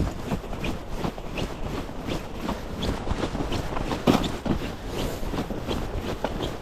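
Footsteps hurrying through deep snow, about two to three steps a second, with one heavier step about four seconds in.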